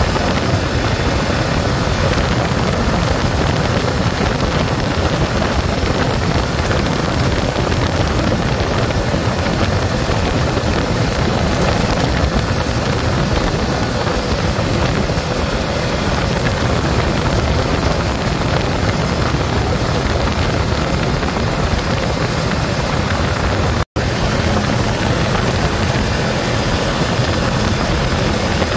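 ATV driven steadily at speed on a dirt trail: engine running under a constant rush of wind on the microphone. The sound cuts out for a split second near the end.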